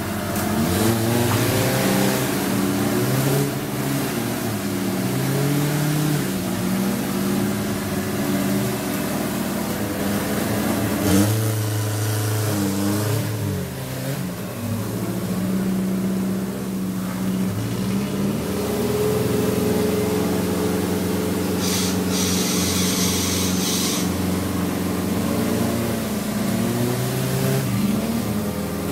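Off-road 4x4 engines revving up and down again and again, working under load as a Suzuki Jimny crawls over boulders on a tow strap. A sharp knock comes about 11 seconds in, and a hiss joins for a couple of seconds about three-quarters of the way through.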